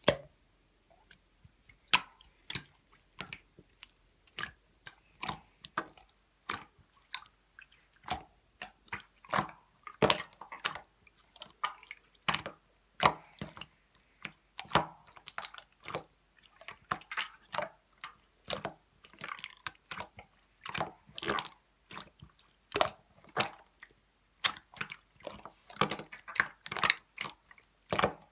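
Clear slime being squeezed and worked by hand, giving short, irregular clicks and pops, one to three a second.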